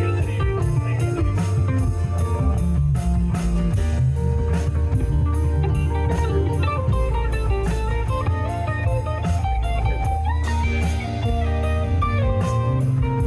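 Live blues-rock band playing an instrumental break: an electric guitar solo in quick melodic runs over bass and a drum kit keeping a steady beat.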